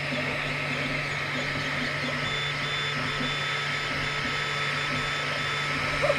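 XVICO X3S 3D printer running a print: a steady fan hum with the stepper motors whining in short, repeated on-and-off bursts.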